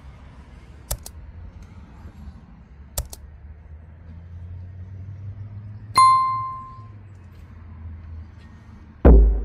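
Sound effects of a subscribe-button animation: two quick double mouse clicks about two seconds apart, a bright notification bell ding about six seconds in, then a loud whoosh near the end.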